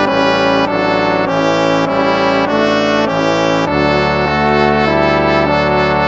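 Instrumental hymn music in a brass sound, held chords moving from one to the next every second or so.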